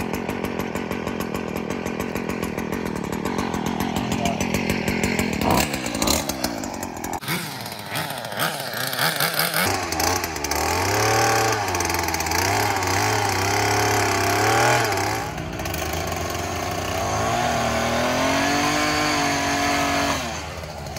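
Gas-powered pole saw running while cutting limbs high in a dead tree, its engine revving up and down repeatedly. The engine drops back to a lower, steadier note near the end.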